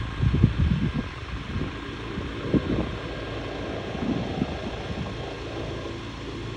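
Wind buffeting the microphone in irregular gusts, loudest in the first second, over the steady hum of the Cessna 310's engines.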